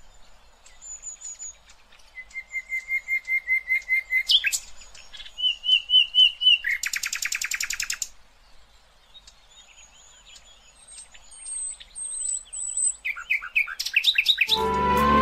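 Birds singing: strings of quick repeated whistled notes and high thin calls, with a fast buzzy trill about seven seconds in. Music comes in just before the end.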